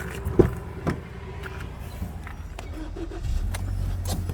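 A couple of sharp knocks, then the Kia Sportage's 2.0 G4KD inline-four petrol engine starts from cold about three seconds in and settles into a steady low run.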